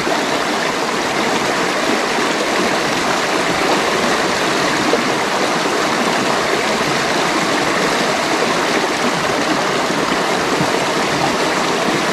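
Shallow rocky stream flowing steadily, water rushing over stones and through a small cascade close by.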